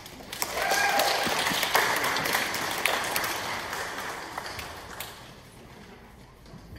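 Audience applauding, starting about half a second in and fading away after a few seconds.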